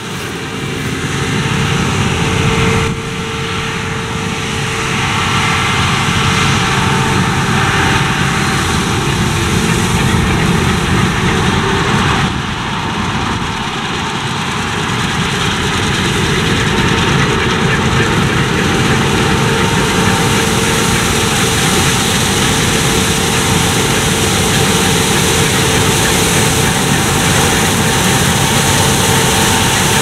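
Claas Lexion 600 TT tracked combine harvester running under load, cutting and threshing oilseed rape: a steady engine and machinery drone with a faint whine. It grows slowly louder as the machine comes nearer.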